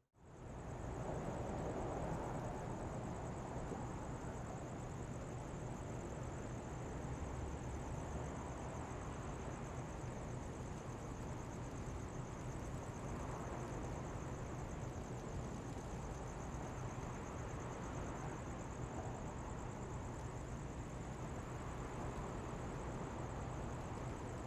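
Quiet city street ambience: a steady wash of distant traffic, with a constant high-pitched whine above it and a low hum beneath.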